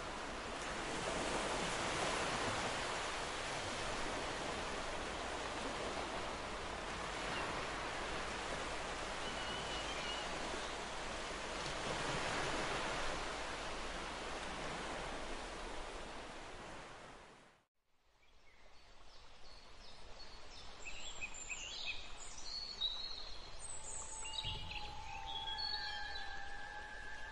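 Steady hiss of sea surf and wind, which fades out to silence about two-thirds of the way through. After the break, birds chirp and call over a quiet background, with a steady high trill and a low bump near the end.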